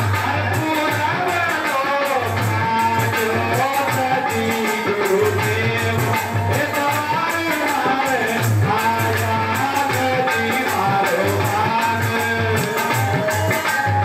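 Music: a wavering melody over a steady, regular low beat.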